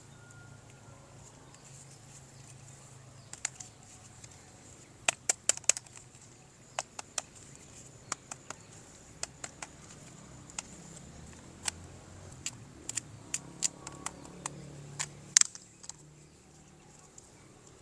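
Irregular sharp clicks and taps of plastic toys being handled, coming in clusters with the loudest near the end.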